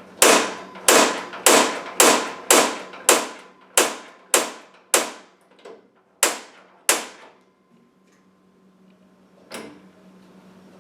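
Mr. Heater Buddy propane heater's piezo igniter snapping about a dozen times, roughly two clicks a second, then one more after a pause. These are repeated attempts to light a pilot that has not yet caught.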